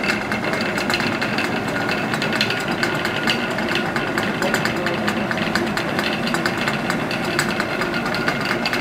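Water-powered gristmill running, its millstones grinding with a fast, steady clatter from the wooden feed stick knocking on the turning stone under the hopper.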